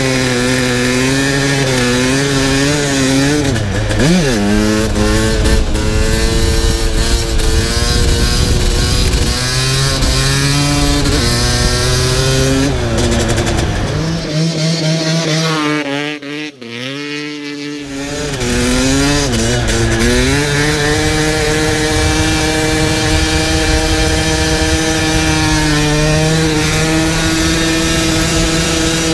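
Dirt bike engine revving up and down while riding on ice, with a sharp rise and fall in pitch about four seconds in. For a few seconds past the middle it sounds quieter, from a distance, then comes back close up.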